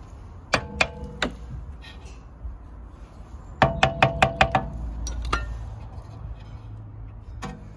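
A hammer tapping a Skoda Octavia's rear brake caliper into place over new pads, with sharp metal knocks that ring briefly. Four strikes come about half a second in, a fast run of about six follows near four seconds, and a couple of single taps come later.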